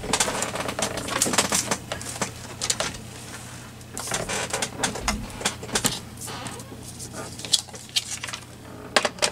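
Paper sheets being slid and rustled by hand on a cutting mat, with scattered light clicks and taps at an irregular pace.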